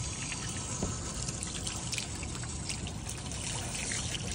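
Water running from a hose onto a fish-cleaning table as a fish is rinsed: a steady trickling splash, with a few faint clicks.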